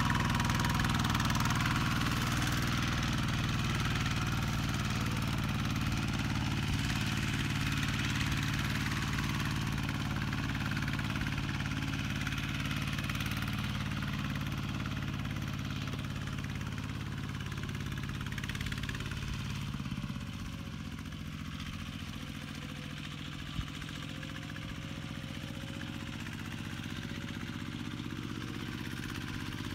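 Kubota RT120 walk-behind tractor's single-cylinder diesel engine running steadily, growing fainter as the tractor moves off across the field. About two-thirds of the way through there is a single sharp click.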